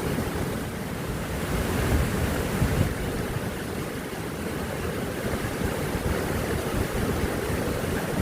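Wind buffeting the microphone, with uneven low rumbling gusts over a steady rushing hiss.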